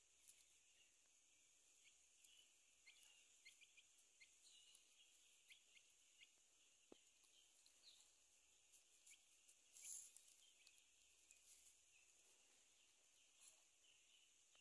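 Near silence: a faint steady high hiss, with scattered faint short high ticks and chirps and one slightly louder blip about ten seconds in.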